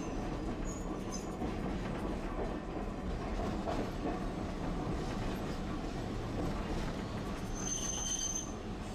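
Tosaden streetcar running, heard from inside the car: a steady rumble of wheels on rail. About eight seconds in there is a brief high squeal.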